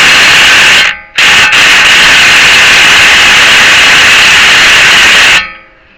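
Impact wrench hammering on a seized CV axle nut, very loud and distorted. It breaks off briefly about a second in, then runs again and stops near the end without breaking the nut loose.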